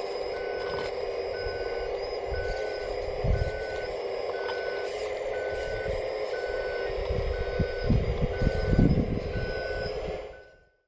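Reversing beeper on a radio-controlled scale construction model, a short beep repeating about once a second over the steady whine of the model's electric drive. Low knocks and rumble come in around the middle and grow toward the end, then everything fades out just before the close.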